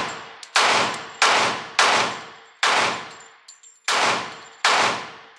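Glock 30S .45 ACP pistol fired six times in a steady string, the shots a little over half a second to about a second apart. Each shot rings out in a long echo off the indoor range's walls.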